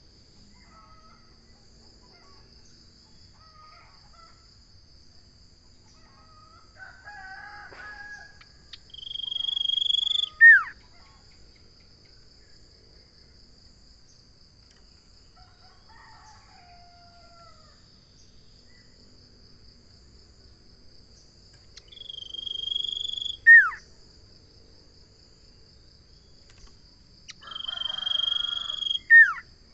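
Common iora (cipoh) calling three times, each call a long held whistle ending in a sharp downward note, with softer chirps between. A steady high insect drone runs underneath.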